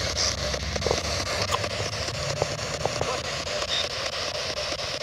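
Ghost box sweeping through radio frequencies: a steady hiss of static broken by quick, regular ticks several times a second and brief blips of radio sound.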